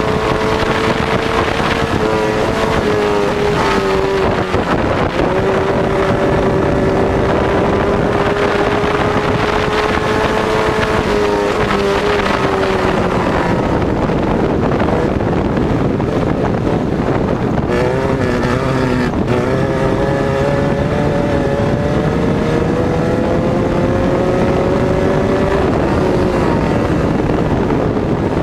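Air-cooled VW flat-four engine of a tube-frame off-road buggy running hard at racing speed, its pitch dropping briefly and climbing again a few times as the driver shifts or lifts. Wind buffets the microphone throughout.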